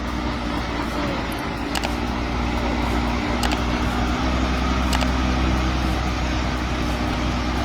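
A large engine running steadily with a constant low hum, with a few faint clicks over it.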